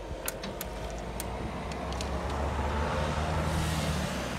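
A car driving over the level crossing past the microphone, its engine hum and tyre noise building to their loudest near the end. A few sharp clicks come in the first second.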